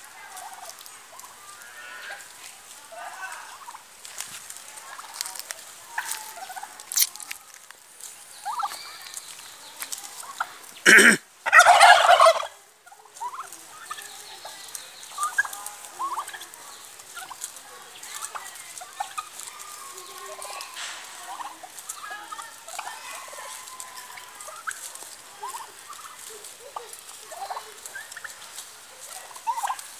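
Domestic turkeys calling with short scattered yelps and clucks; about eleven seconds in, a tom gives one loud gobble lasting about a second and a half.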